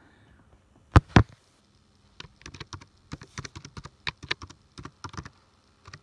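Password being typed on a Mac keyboard: an uneven run of about twenty quick key clicks, after two louder knocks about a second in.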